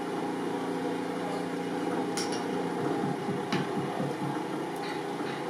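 Steady workshop hum with a few light clicks and taps as a leather cricket ball is hand-stitched with an awl and thread.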